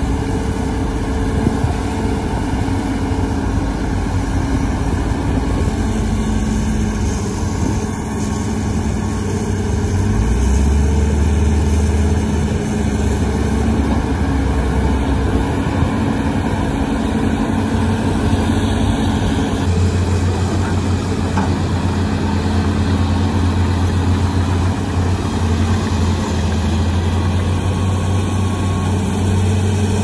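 Hitachi ZAXIS 210 excavator's diesel engine running steadily, its low hum shifting about ten seconds in and again about twenty seconds in.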